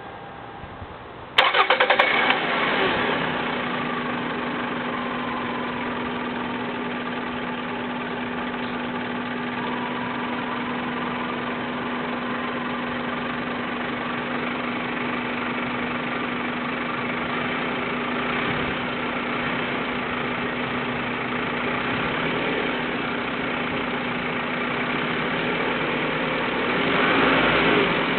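Car engine cranked and catching about a second in, then idling steadily with a constant low hum; it grows louder near the end. The engine has a vacuum leak meant to hiss at idle, though the microphone picks up little of the high hiss.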